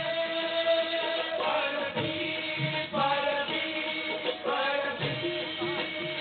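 A devotional bhajan sung with instrumental accompaniment: steady held notes under sung phrases that rise and fall.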